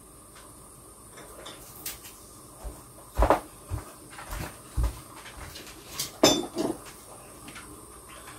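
A few knocks and clatters of a kitchen cupboard door and glass spice jars being handled, the loudest about three seconds in and again about six seconds in.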